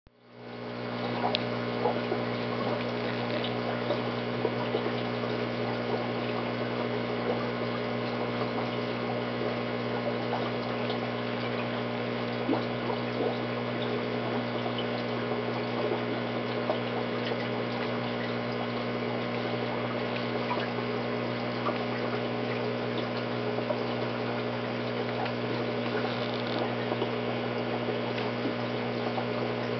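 Aquarium filter running: a steady electric hum under a constant wash of pouring, trickling water, with scattered faint ticks.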